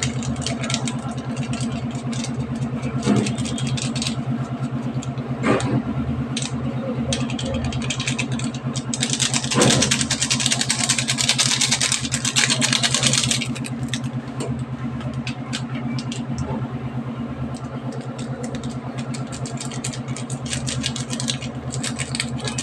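A steady low motor hum with a fast, even pulse throughout. About nine seconds in, a few seconds of hissy rustling as a masala sachet is shaken out over the pan.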